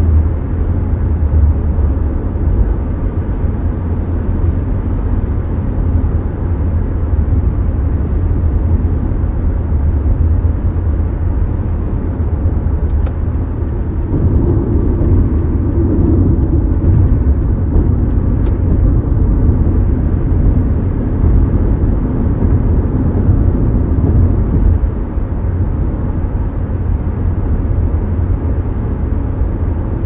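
Cabin interior of a Mazda CX-5 small SUV cruising on a highway: a steady, low drone of road and engine noise, with a couple of faint clicks. The level eases slightly near the end.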